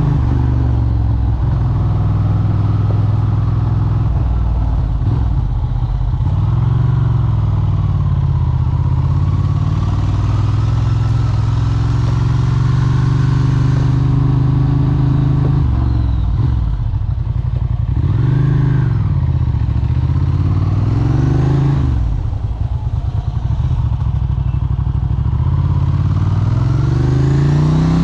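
Capello SP78 moped engine running, its pitch rising and falling several times as the throttle is opened and closed.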